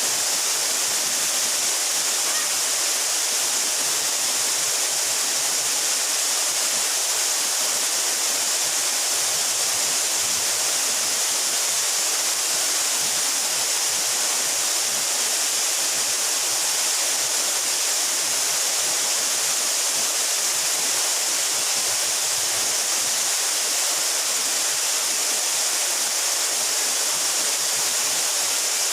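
Mountain waterfall of about 12 metres falling steadily: a constant, even hiss of water, bright and high with little low rumble.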